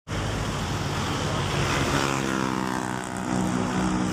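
Diesel truck engine running with a steady drone whose pitch sags and recovers a little around the middle.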